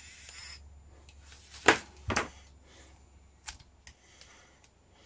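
A 3D pen's extruder motor whirring faintly, stopping about half a second in, followed by a few sharp clicks and knocks of hard objects being handled on a table, the loudest two close together about two seconds in.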